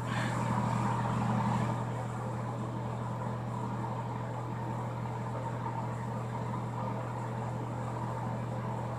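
A steady low mechanical hum with a constant low tone, a little louder for the first couple of seconds.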